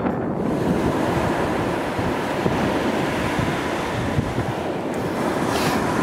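Wind buffeting the microphone over the steady wash of ocean surf breaking on the beach.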